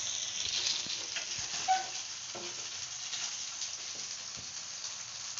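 Chicken pieces sizzling as they shallow-fry in hot oil in a non-stick frying pan, now browned and ready to come out. A wooden spatula scrapes and taps the pan as the pieces are lifted out, adding scattered short clicks over the steady sizzle.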